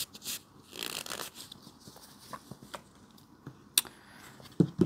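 Rustling and light clicks of a new fixed-blade knife and its packaging being handled by hand, with one sharp click about four seconds in and two low thumps near the end.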